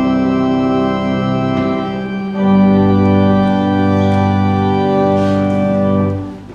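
Church organ holding a sustained chord, then moving to a second, louder chord about two seconds in, held and released near the end: the closing chords of a hymn.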